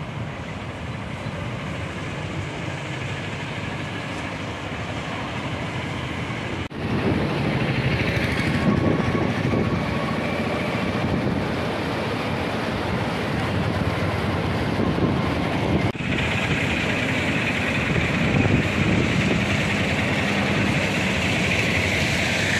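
Steady rushing noise on a bridge over a river in flood: water churning past the concrete piers, mixed with wind on the microphone and traffic noise. The sound changes abruptly twice, about a third and about two thirds of the way through.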